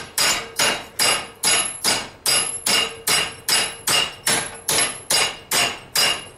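Hand hammer striking a hot railroad spike clamped in a post vise, about fifteen even blows at roughly two and a half a second. Each blow rings metallically, and the hammering is bending a 90-degree turn into the spike.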